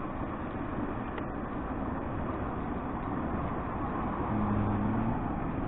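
Steady background noise of road traffic, with a low engine hum coming through for under a second about four seconds in.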